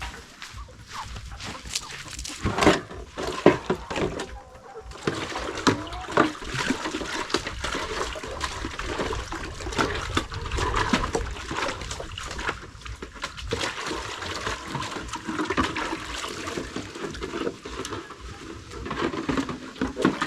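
Water splashing and sloshing, with many irregular short knocks and clicks.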